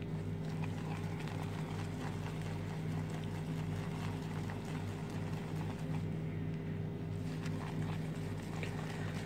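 Shaving brush whipping soap lather in a bowl, faint swishing and squelching, under a steady low mechanical hum that throbs rhythmically.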